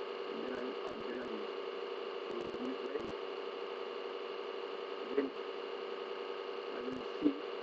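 Steady electrical hum and hiss in the recording, with a few faint short clicks scattered through, the sharpest about seven seconds in.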